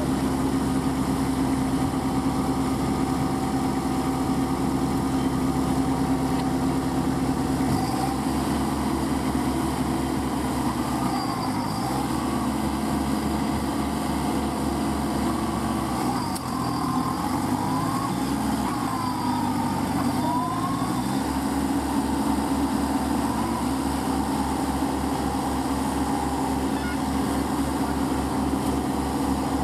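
Diesel engines of a Kubota mini tractor stuck in deep mud and a cage-wheel tractor beside it, running steadily. From about eight seconds in, the engine speed rises and falls again and again as the stuck tractor is driven to pull free. It settles back to a steady run a little after twenty seconds.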